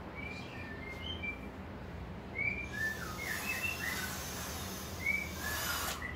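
Birds chirping: many short, separate chirps of varying pitch, some dropping quickly, over a low steady hum. A rustling hiss joins them for the second half.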